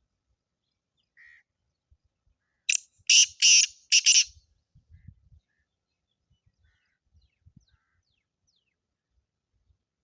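Black francolin calling once: a loud, harsh phrase of about four rapid notes, about three seconds in, lasting roughly a second and a half.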